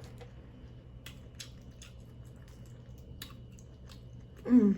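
Close-up eating sounds: scattered small clicks and smacks of someone chewing seafood, over a faint steady hum, with a brief voiced sound near the end.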